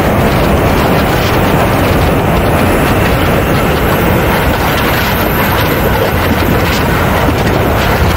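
Steady, loud rush of airflow over a camera mounted under the belly of a radio-controlled Mibo A-10 Warthog model jet in flight, mixed with the running of its jet turbines.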